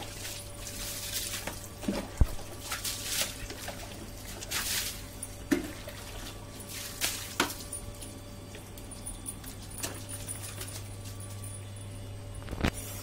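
Short splashes and trickles of water on a wet concrete floor every second or two around a freshly bathed dog, with a few sharp knocks, the loudest about two seconds in, over a steady low hum.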